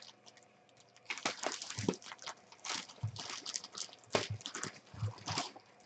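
Thin plastic bag crinkling and rustling as it is handled and pulled open, in irregular bursts from about a second in.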